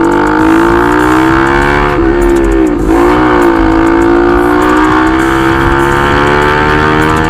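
Bajaj Pulsar NS200's single-cylinder engine running through an aftermarket SC Project-style full-system exhaust under way. The loud exhaust note dips briefly about three seconds in, then climbs steadily as the bike accelerates.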